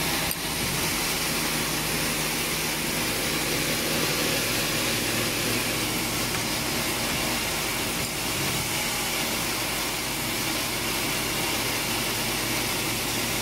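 Coil nail welding machine running steadily, with an even whirring hiss and a low electrical hum as nails feed through the wheel and are welded onto their wire collation strips.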